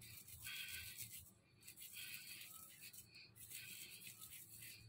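Faint, soft swishing of wet palms rolling a ball of milk-powder rasmalai dough, in a few short strokes about a second apart, smoothing it round so no cracks remain.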